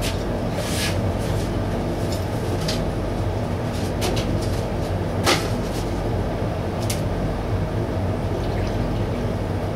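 Steady low machine hum under a few sharp clicks and knocks from plastic mixing cups and a paint spray gun being handled at a bench. Near the end, paint is poured from a mixing cup into the spray gun's cup.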